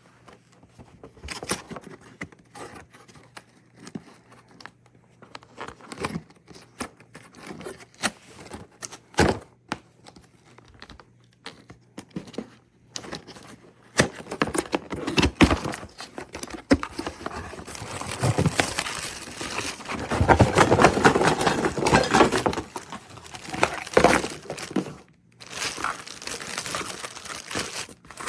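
Irregular crinkling and rustling with scattered clicks, heaviest about two-thirds of the way through.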